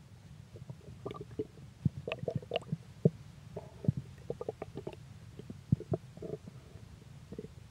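A person's stomach growling: a low continuous rumble overlaid with an irregular string of short gurgles and small pops.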